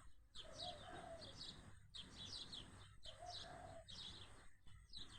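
Small birds chirping faintly, many short falling chirps overlapping, with a lower rounded call repeating about three times.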